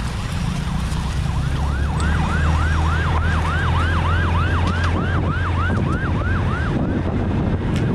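Emergency vehicle siren on a fast yelp, about three rising-and-falling sweeps a second. It starts about a second and a half in and stops near the end, over a steady low rumble.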